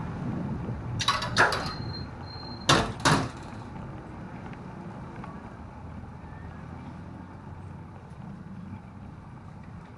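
A bicycle rolling along a narrow concrete alley: steady low rumble of tyres on the path, with a few sharp clanks and rattles in the first three seconds and a brief high steady tone between them.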